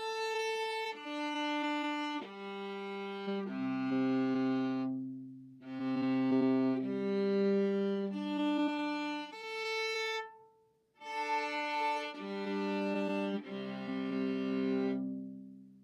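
Viola bowing its open strings (A, D, G and C), singly and as two-string double stops, in three passes separated by short pauses. This is an open-string volume test comparing the instrument's tone with different mutes.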